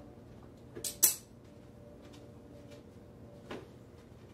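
A few sharp clicks and knocks of tools or parts being handled during mechanical work: a soft one just before a loud one about a second in, and another near three and a half seconds.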